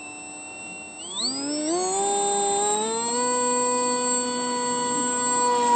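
Beta 1400 RC plane's electric motor and propeller being run up for a hand launch: a high steady tone, then about a second in a whine that climbs in pitch over two seconds and holds steady at full power.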